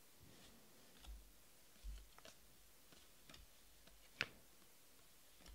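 Faint clicks and light snaps of a stack of trading cards being flipped through by hand, about one a second, with a couple of soft low bumps early on and the sharpest click about four seconds in.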